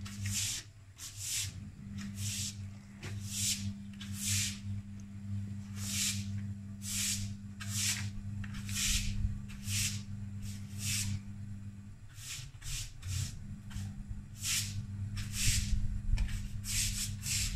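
Gorenje washing machine running, with a steady low hum and repeated swishing or rubbing about once a second.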